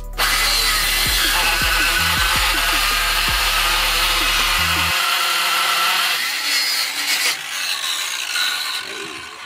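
Cordless jigsaw cutting a construction-grade treated-lumber stair tread: the blade runs steadily for about six seconds, then in shorter, uneven passes until it stops near the end.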